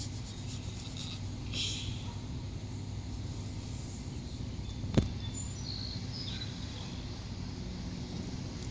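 Steady low mechanical hum in the background, with a single sharp click about five seconds in and a few short bird chirps just after.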